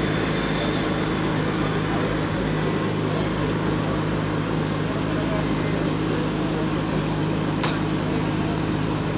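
Steady low mechanical hum, with one short sharp click about three-quarters of the way through.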